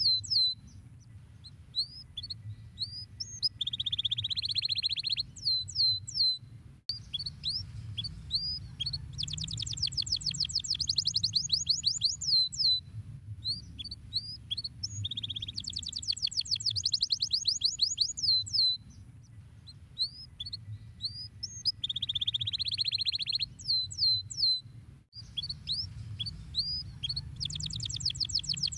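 Domestic canary singing: fast trills alternate with sharp, downward-sweeping whistled notes and a lower rolling phrase, over a low hum.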